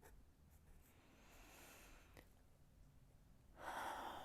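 Near silence: quiet room tone through a lavalier microphone, with a faint click about two seconds in and a short, soft rush of noise near the end.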